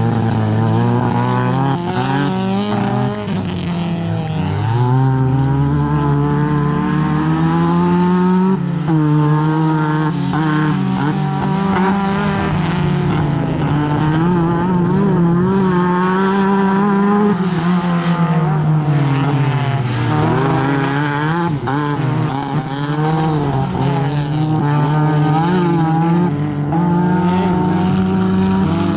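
Classic Lada race car engine revving hard on a dirt autocross course, its pitch climbing and dropping again and again as it accelerates and slows.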